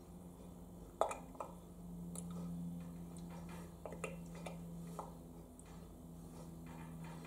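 Rinse aid glugging out of an upside-down squeezed plastic bottle into a dishwasher's rinse-aid dispenser: a few irregular clicks and glugs, the loudest about a second in, over a steady low hum.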